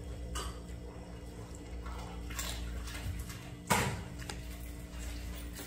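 Cat lapping water from a plastic basin: faint wet laps and small splashes, one sharper splash about two-thirds of the way through, over a low steady hum.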